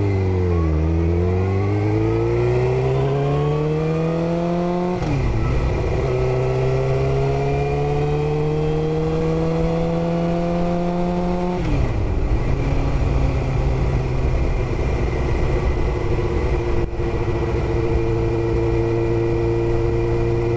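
2002 Suzuki GSX-R750's inline-four engine pulling away from a stop and accelerating. The pitch climbs through first gear, drops at an upshift about five seconds in, climbs again through the next gear, and drops at a second upshift about twelve seconds in. After that it holds steady at cruising speed.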